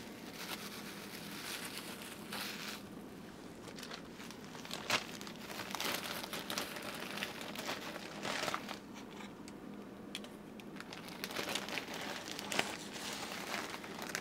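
Bubble wrap and a clear plastic bag crinkling in irregular bursts as hands unwrap and handle them.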